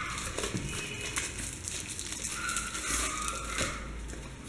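Thin paper wrapping being torn open and crinkled by hand: a continuous rustling crackle of many small tears and crumples.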